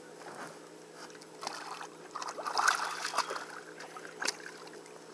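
Water splashing as a hooked redfish thrashes at the surface beside the boat, loudest about halfway through. A single sharp knock comes near the end.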